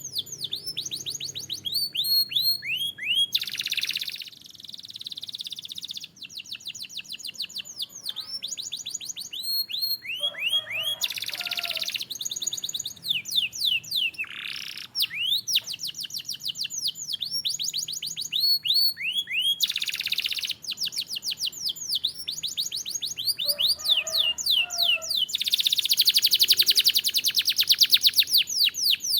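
Domestic canary singing a long, continuous song of rapid trills made of quickly repeated falling notes, broken by a few short harsh, buzzy phrases. It ends in its loudest, very fast trill.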